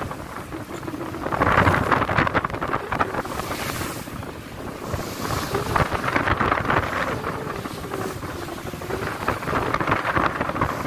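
Strong wind gusting over the microphone with waves washing and splashing at sea, the noise swelling and easing in surges a few seconds apart.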